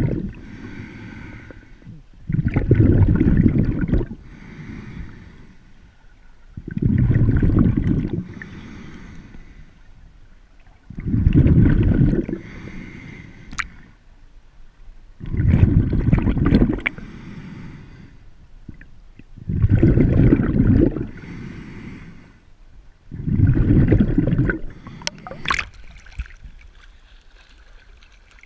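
A snorkeler breathing through a snorkel, muffled through the water and the camera housing: a loud, low breath about every four seconds, seven in all, with a quieter breath between each.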